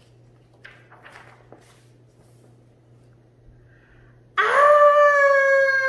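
A woman's long, high-pitched acted scream, "Ahhh!", bursting in about four seconds in and held for a couple of seconds, sliding down in pitch as it trails off. Before it, soft rustles of a book page being turned.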